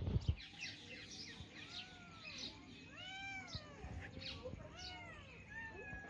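Kittens meowing repeatedly: a run of short meows, each rising then falling in pitch, some overlapping. There are a couple of low thumps right at the start.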